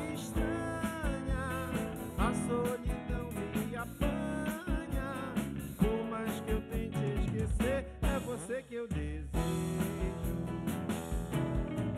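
Live band playing: drum kit, electric bass and two guitars, with a wavering lead melody over a steady beat.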